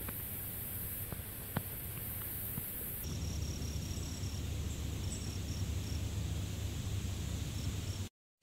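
Outdoor woodland ambience: steady hiss with a low rumble on the microphone, a few faint clicks, and, from about three seconds in, short runs of faint high chirps. The sound cuts out briefly near the end.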